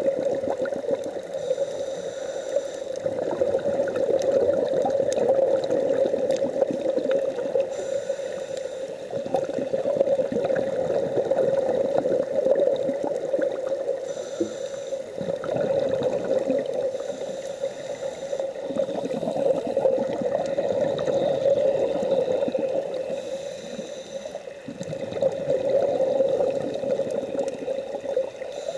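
Scuba regulator exhaust bubbles bubbling and gurgling underwater, with the breathing of divers on scuba swelling and easing every few seconds.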